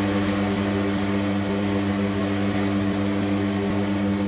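Steady low machine hum with a rushing noise over it, unchanging.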